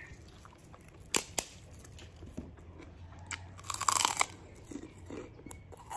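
A crisp kerupuk cracker being bitten and crunched. Two sharp cracks come about a second in, then a loud spell of crunching near four seconds in.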